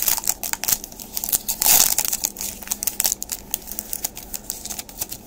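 Crinkling of a foil trading-card pack wrapper and trading cards being handled, a rapid run of small clicks and rustles.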